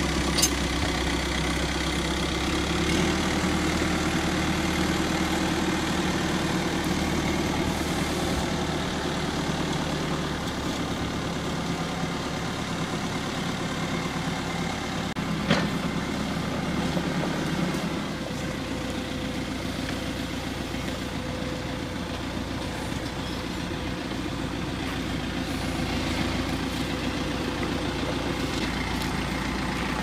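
Caterpillar 420E backhoe loader's diesel engine running steadily under load as it carries the front of a pickup on its loader arms. There is a sharp click about half a second in and another about halfway through.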